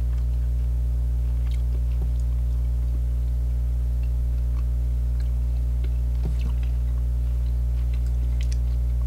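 A mouth chewing dry, crumbly beef jerky, heard as faint scattered clicks and crunches under a loud, steady electrical hum.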